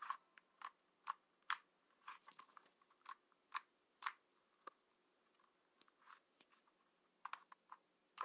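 Slime being squeezed and pressed by hand, giving faint, short, irregular clicks and pops, about a dozen in all, with near silence between them.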